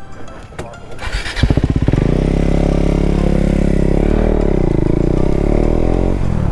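A motorcycle engine comes in strongly about a second and a half in and runs steadily as the bike rides off. Its pitch dips and rises once near the middle.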